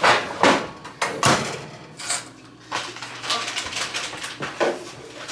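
Kitchen clatter of dishes and utensils being handled: a run of separate knocks and scrapes about a second apart.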